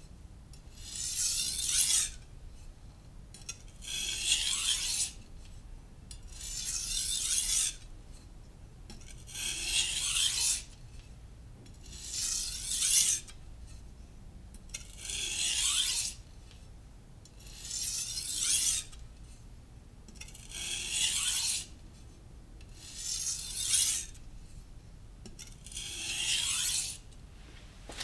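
Kitchen knife edge drawn in long strokes across a wet Naniwa Professional 600-grit whetstone: ten scraping strokes about three seconds apart, each swelling toward its end, with short pauses between.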